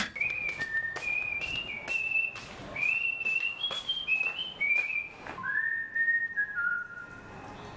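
A person whistling a tune: a string of short held notes, then a few longer, lower notes that step downward near the end. Light clicks and taps fall between the notes, and there is one sharp click at the very start.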